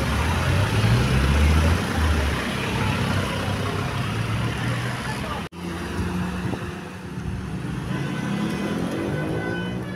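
Large bus engine running with a heavy low rumble. After an abrupt cut about halfway, the engine hums and then revs up near the end. The first high notes of a telolet musical horn start just at the close.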